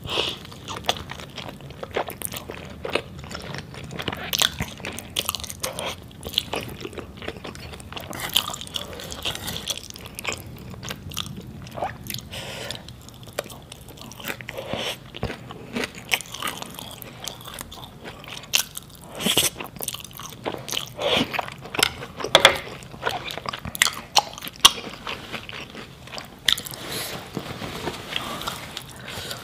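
Close-miked eating of saucy instant noodles: a slurp, then chewing with many wet mouth clicks and smacks.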